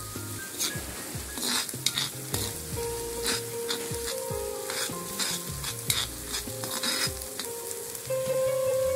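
Green coconut-and-coriander masala paste sizzling in a kadhai while a metal spoon stirs it, scraping and clinking against the pan. The scrapes come thickest in the middle of the stretch.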